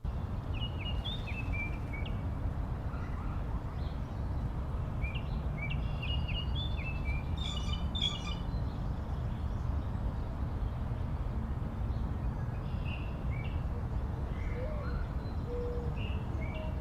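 Small songbirds chirping in short, high calls, mostly in groups in the first half and fainter later, over a steady low outdoor rumble.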